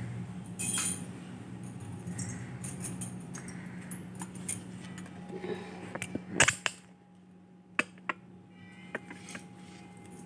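Household cleaning and handling noises: rustling and scattered clicks and light jingling as a long-handled broom works against the ceiling, then a sharp knock about six and a half seconds in as the camera is moved. A few quieter clicks follow, all over a steady low hum.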